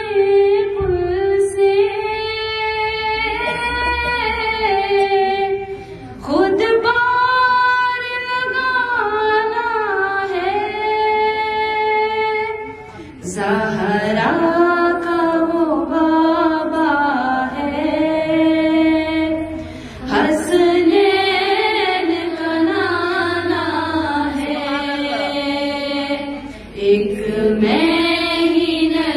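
A woman singing an Urdu naat unaccompanied into a microphone. She holds long, wavering notes in phrases of several seconds, with short breaks between them.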